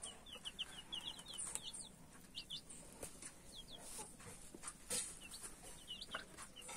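Week-old chicks peeping: short, high, falling notes, a quick run of them at first, then pairs and small groups every second or so. There are a few faint knocks among them.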